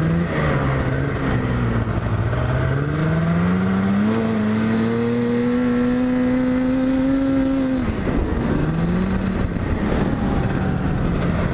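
Yamaha snowmobile engine running under way. The throttle opens about four seconds in, sending the engine note sharply up to a steady high pitch for about four seconds, before it drops off quickly and settles back to a lower steady note.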